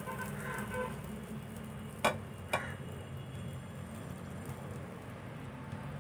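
Steady low kitchen hum under a pan on a gas stove, with two sharp clicks about half a second apart a little after two seconds in.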